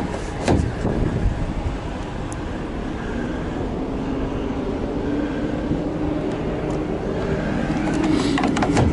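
Kenworth T680 hood latches being knocked and clicked shut, once about half a second in and again in a quick cluster near the end, over a steady low rumble.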